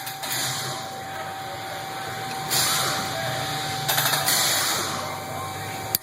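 Steady machine hum with a thin, constant whine, broken by two short bursts of hiss about two and a half and four seconds in; the whine stops with a click near the end.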